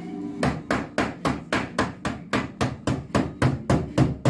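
Rapid, steady hammer blows on the steel bodywork of a car under rust repair, about four a second, starting about half a second in. The blows are knocking a welded repair panel's overlapping edge flush.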